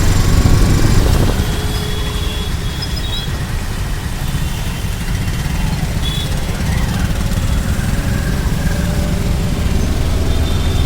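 Road traffic: vehicle engines running in a steady low rumble that is loudest in the first second or so, then eases a little.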